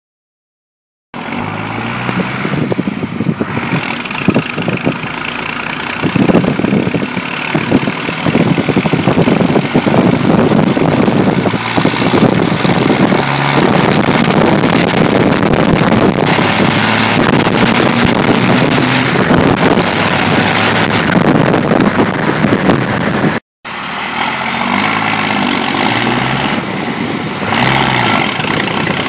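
1993 first-gen Dodge Ram's 5.9 L 12-valve Cummins turbodiesel, injection pump turned up, pulling hard through the gears and rolling coal, with its pitch rising and falling as it revs. Wind and road noise from the moving truck are mixed in. The sound starts about a second in and cuts out for an instant near the end.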